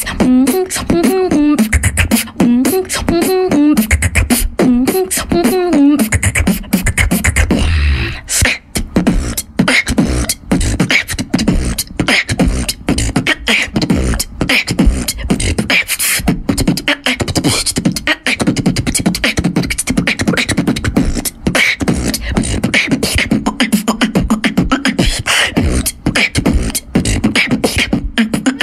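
Female beatboxer performing vocal percussion into a handheld microphone. For about the first six seconds a hummed melody with wavering pitch rides over the beat. After that comes a fast, dense run of mouth-made drum sounds with deep kicks and sharp clicks, and a steady low hum joins under the beat near the end.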